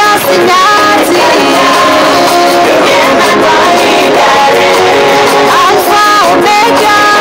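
A man singing a gospel song over loud, steady instrumental backing music.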